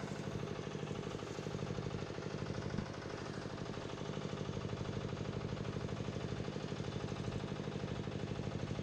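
Geological survey rig hammering a survey tube into the ground: a steady, rapid machine pounding, a 'dadada', with its motor running underneath.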